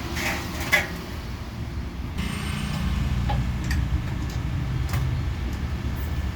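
Steady low machine hum with scattered clicks and knocks from work with knives. About two seconds in, a second motor hum with a higher whine starts abruptly, like a sharpening machine switched on.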